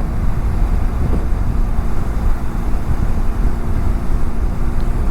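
Wind rushing and buffeting over a helmet-mounted lavalier mic on a moving motorcycle. It is a loud, steady low rumble, and the BMW F700GS parallel-twin engine hums faintly underneath.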